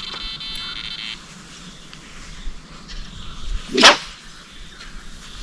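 A feeder rod swishing through the air in a cast, one short, loud whoosh sweeping up in pitch near the end. It is preceded by a brief, even buzz lasting about a second.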